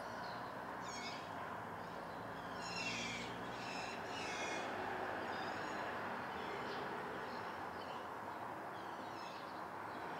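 Summer room ambience: a steady low background rumble with birds chirping, the strongest run being three calls about three to four seconds in, then fainter calls later on.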